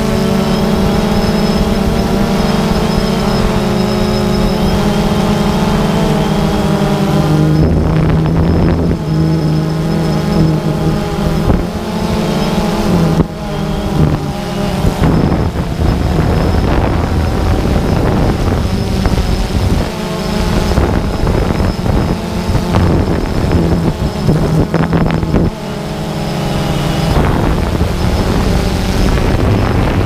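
DJI Phantom 2 quadcopter's motors and propellers droning close to the camera, their pitch shifting several times as the drone manoeuvres, with rough wind buffeting over the microphone between about 7 and 15 seconds in.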